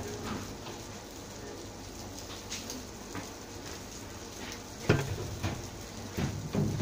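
Background noise of a kebab shop kitchen with scattered handling knocks. A sharp knock comes about five seconds in, then a few more short sounds.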